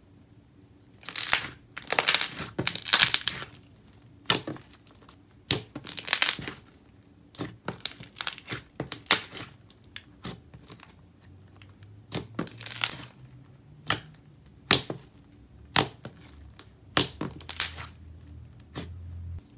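Thick, creamy self-inflating slime squished and pressed by hand, giving irregular crackling bubble pops as air pockets burst under the fingers.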